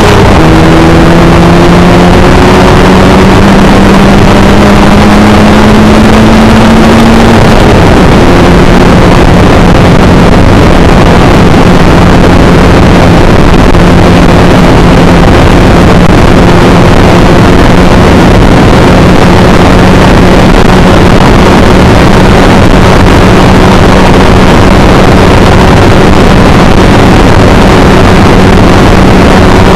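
Motorcycle engine on test, running loud and steady; its pitch creeps up for several seconds, drops about a quarter of the way in, then holds even.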